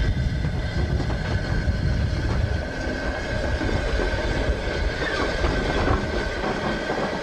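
Railway train on the move: a continuous low rumble of running on rails, with a faint steady high tone over it.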